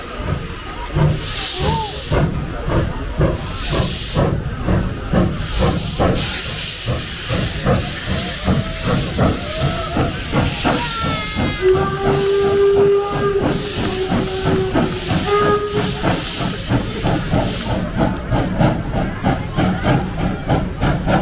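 Steam locomotive 52.100, a two-cylinder class 52 freight engine, working under steam: steam hissing and exhaust beating in a steady rhythm. About midway its steam whistle sounds, one long blast followed by a short one.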